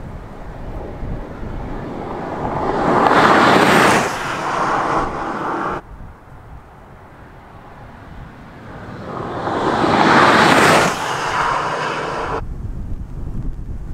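BMW M5's twin-turbo V8 hybrid drivetrain passing at speed twice, each pass swelling to a loud peak and then cutting off suddenly.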